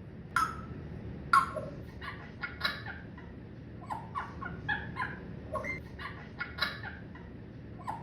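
Pet parrot calling in a string of short squawks and chattering sounds, with two sharp, loud squawks in the first second and a half.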